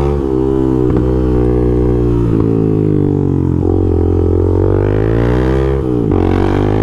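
Honda Twister motorcycle's single-cylinder engine running loud through a sport exhaust while riding, its pitch dipping and climbing again several times.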